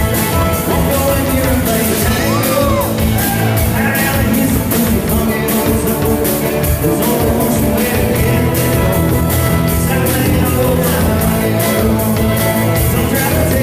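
A live band plays old-time rock and roll, with a fiddle, an acoustic guitar and a steady drum beat, and a man singing lead into the microphone.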